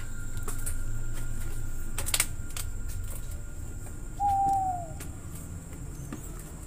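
Handling rumble and a couple of sharp knocks as someone climbs over rough concrete. About four seconds in, a single short whistled hoot that falls in pitch: an owl calling.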